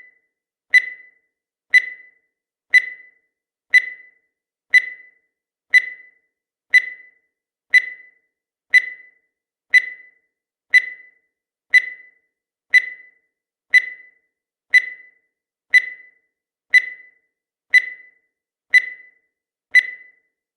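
Countdown timer sound effect: a short high-pitched tick once a second, each one dying away quickly, about twenty in a row at an even pace.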